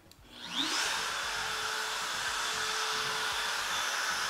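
CNC machine's compact router switched on: its motor spins up with a fast rising whine about half a second in, then runs steadily at full speed with an even, hissing whine.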